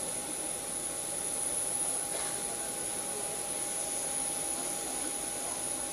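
Jet turbine of a parked Boeing 737 running at idle: a steady rushing hiss with a high-pitched whine and a steady mid-pitched hum.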